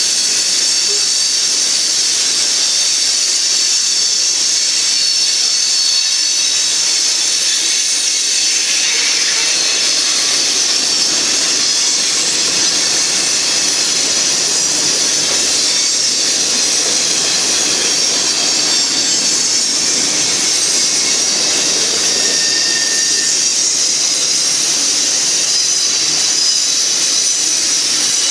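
Covered hoppers and boxcars of a manifest freight train rolling past: steel wheels on rail making a loud, steady hissing rush, with a somewhat deeper rumble in the middle stretch.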